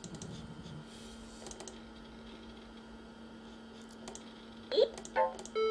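Mouse clicks over a steady low hum, then near the end the Macintosh's speaker plays short Mac OS alert sounds: a couple of quick pitched chirps and a held beep, quietly.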